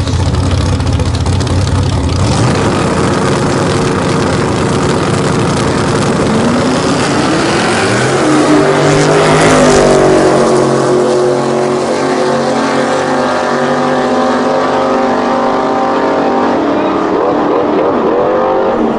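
Drag-racing pickups, a yellow Ford Ranchero and a Ford Lightning, rumbling at the start line, then launching about two seconds in and accelerating hard down the strip. The engine note climbs as the Ranchero comes past, loudest around ten seconds in, then drops in pitch and carries on down the track.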